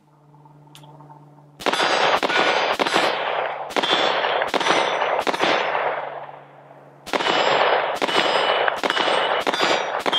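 Modern Outfitters MC6 AR-15 rifle fired unsuppressed in semi-automatic: two strings of about six shots each, roughly one to two shots a second, with a pause of about a second between them. Each shot is loud and rings out with an echo.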